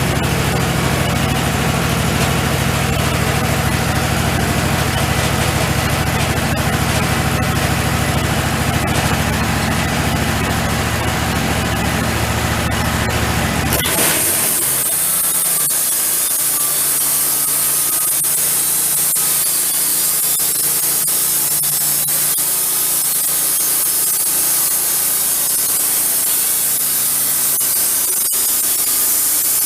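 Wood-Mizer portable sawmill's engine running steadily; about halfway through the engine sound cuts off abruptly and a steady hiss takes over.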